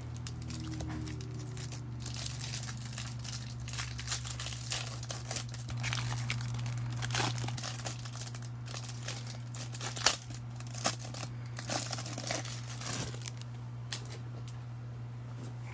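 Clear plastic shrink-wrap around a stack of Topps baseball cards being torn open and crinkled, in a dense run of crackles that is loudest in one sharp snap about ten seconds in. A steady low hum runs underneath.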